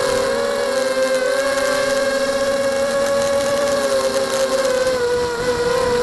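FPV quadcopter's brushless motors and propellers, heard from the onboard camera: a loud, steady multi-tone whine that wavers slightly in pitch as the drone flies.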